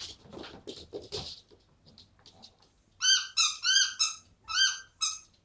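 Dog mouthing and chewing a squeaky donut toy: soft rustling and gnawing, then about halfway through a quick run of about eight loud, short squeaks from the toy's squeaker.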